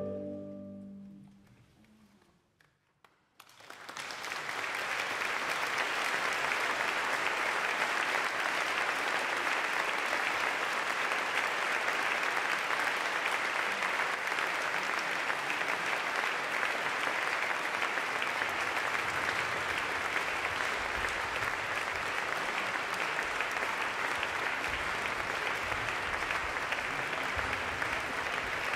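The last chord of the music dies away into a second or so of silence, then an audience starts applauding and keeps up steady applause.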